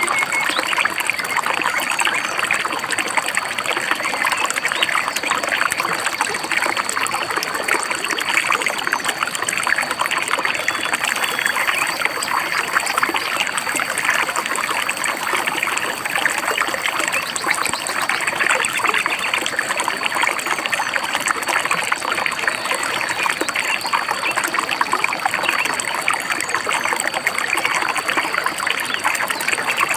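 Shallow stream or river babbling and trickling over stones, a steady, even rush of water.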